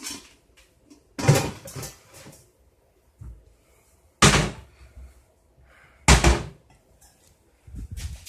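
Kitchen bangs: three loud, sudden bangs a couple of seconds apart, with a few softer knocks near the end, the sound of cupboards and cookware being handled while cooking.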